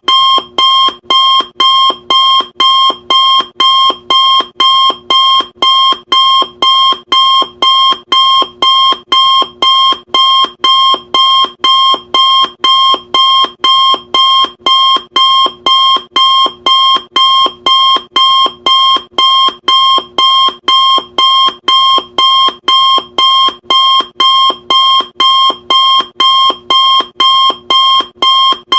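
Loud electronic alarm beep repeating at an even pace, about two short beeps a second. Each beep is a bright tone that starts sharply and fades away quickly.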